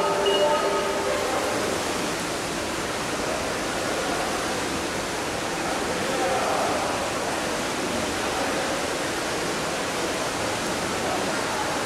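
Steady rushing, hiss-like water noise as heard through an underwater camera in a swimming pool, with faint muffled voices.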